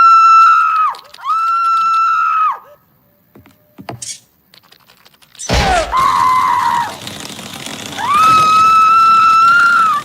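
Cartoon sound-effect track: a series of long, high-pitched held cries, each rising at the start and dropping off at the end, with a sudden crash about halfway through.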